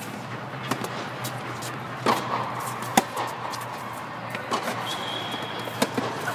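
Tennis balls struck by rackets and bouncing on an indoor hard court during a serve and rally: sharp pops about a second apart, the loudest about three seconds in. A brief high squeak comes about five seconds in, over a steady low hum.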